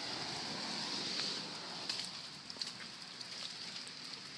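Steady outdoor hiss with scattered faint ticks and crackles, a little louder in the first two seconds.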